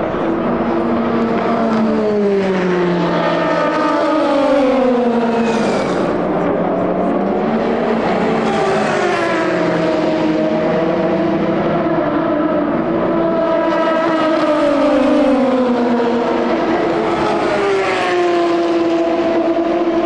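Endurance racing car engines at speed, their pitch climbing and falling with throttle and gear changes, with more than one engine heard at once.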